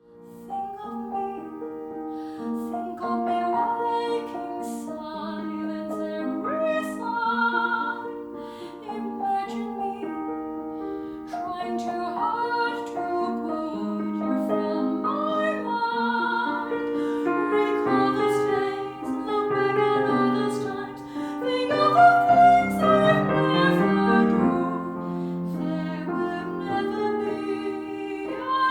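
Soprano singing with piano accompaniment, long sustained notes with vibrato, swelling loudest a little past the middle.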